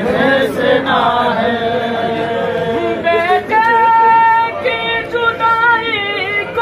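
Men's voices singing a nauha, a Shia mourning lament for Ali Akbar, the crowd of mourners chanting together in the first seconds; from about halfway a single high voice leads with long, wavering held notes.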